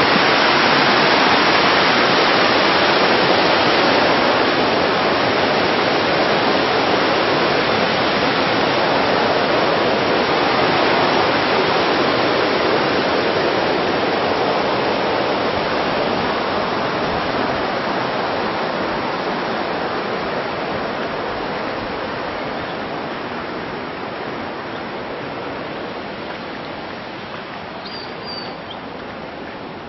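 Steady rush of running water in the pool, growing gradually fainter, with a brief faint high chirp near the end.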